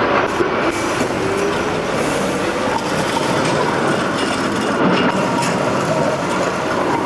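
Electric street tram on its track: a steady running and rolling noise with a faint whine that drifts slightly in pitch.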